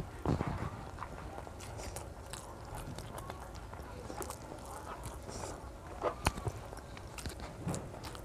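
Close-up chewing and wet mouth smacking of a child eating rice and fish curry by hand, with soft squelches of rice worked with the fingers. Scattered small clicks throughout, with louder smacks about a third of a second in and again around six seconds in.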